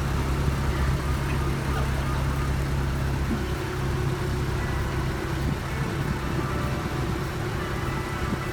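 Boat engine running steadily under way, a low drone with rushing noise over it; its low note weakens a little about three and a half seconds in.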